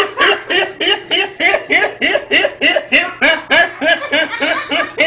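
A young man laughing hard: a long, unbroken run of rapid, high-pitched 'ha' pulses, about four to five a second, each rising and falling in pitch.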